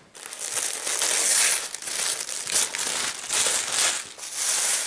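Paper packing crinkling and rustling as hands rummage through it: tissue paper and shredded paper filler in a box, in several bursts with short gaps.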